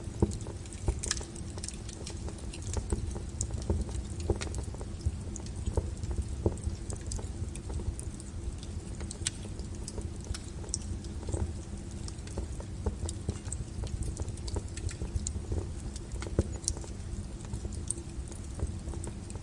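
Burning wood crackling and popping: irregular sharp snaps, the loudest just after the start, over a low steady rumble of the fire.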